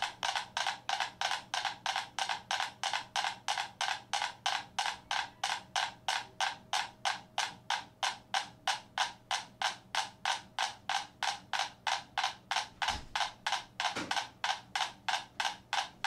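Five mechanical metronomes on a board resting on rolling cans, ticking in unison with about four sharp clicks a second. Their beats coincide as single clicks because the board's sway has pulled them into sync.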